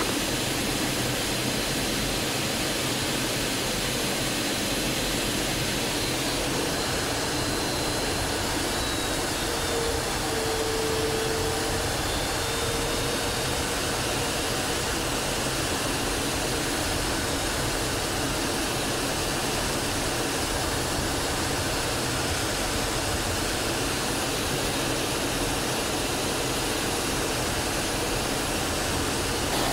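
Steady jet engine and airflow noise heard from inside the cockpit of an L-39 Albatros jet trainer, its Ivchenko AI-25TL turbofan running during the climb after takeoff.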